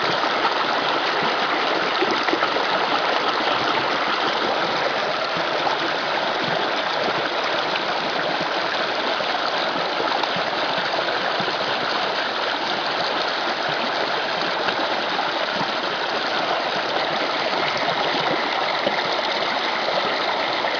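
A small creek's water flowing over its bed, a steady rushing and babbling.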